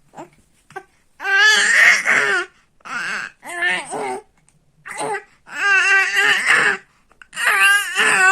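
A baby vocalizing in about six high-pitched, wavering outbursts, squeals and babbling cries with short pauses between them, the longest lasting about two seconds.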